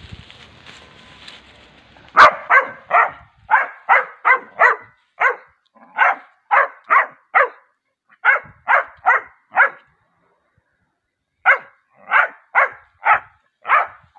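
Dog barking over and over in quick runs of three to five sharp barks, starting about two seconds in, with a pause of over a second near the end.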